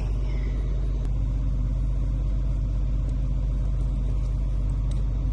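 A vehicle engine idling nearby, a steady low rumble that does not change.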